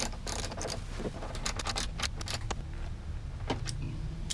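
Socket ratchet and extension clicking and clinking as they are fitted and worked on the swivel seat base's bolts. A close run of sharp metal clicks fills the first two and a half seconds, then two lone clicks come near the end.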